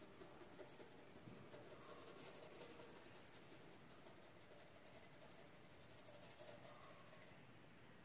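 Faint scratching of a pencil tip on drawing paper, in short irregular shading strokes.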